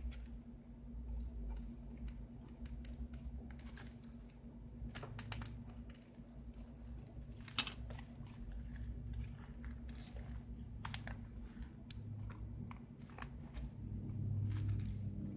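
Scattered crackles and small clicks of cracked iPad glass and its adhesive as a plastic card is worked underneath to pry the glass off, over a steady low hum. One sharper crack comes about seven and a half seconds in.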